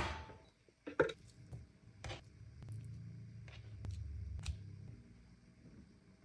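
Quiet kitchen handling sounds: a sharp tap at the very start, then a few light clicks and taps and a low rumble as raw chicken pieces are dropped into a ceramic bowl.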